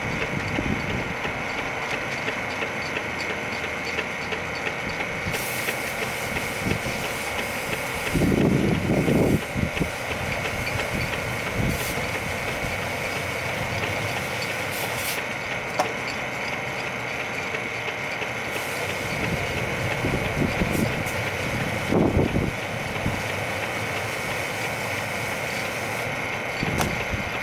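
Electric drain snake (sewer auger) motor running steadily with a constant whine, with a few brief louder rattles now and then.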